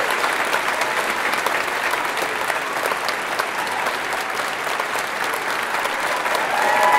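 Audience applauding, a steady dense clapping at the close of a live choral piece.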